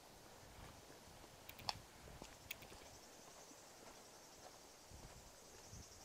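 Quiet footsteps on a dry dirt forest road, with two sharp clicks a little under a second apart about two seconds in, and a faint high steady buzz in the second half.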